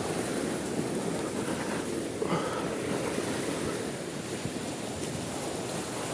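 Steady rushing outdoor noise of wind on the microphone and water at the shore.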